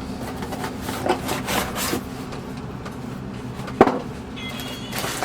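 Rubbing and rustling of sewing machine parts being handled and lifted out of a parts box, with a sharp knock about four seconds in, over a steady low hum.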